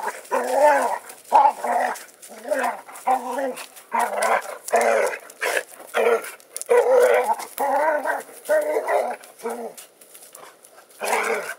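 A retriever-type dog barking and growl-vocalizing in rough play with another dog. The calls are short and arching in pitch, about one or two a second, with a brief pause about ten seconds in.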